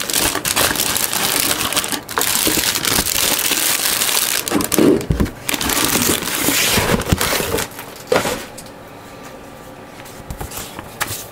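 Plastic bags around model-kit parts runners crinkling and rustling as the kit box is handled, with scattered light knocks of the cardboard box. It goes much quieter after about eight seconds, leaving only a few soft knocks.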